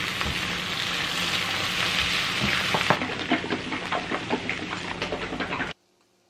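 Mushrooms frying in butter in a nonstick skillet, sizzling and crackling steadily, with a few spatula knocks at first; the sizzle thins to scattered crackles and cuts off abruptly shortly before the end.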